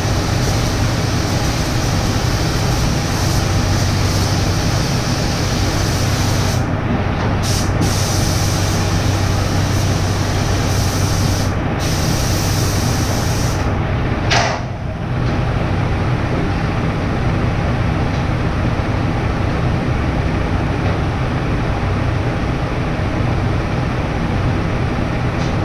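Paint spray gun hissing steadily over a continuous motor hum, with a few short breaks where the spray stops; the hiss is duller after about halfway.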